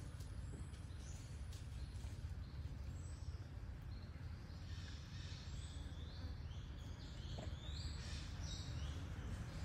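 Steady low outdoor background rumble, with a run of short, high chirping bird calls beginning about halfway through.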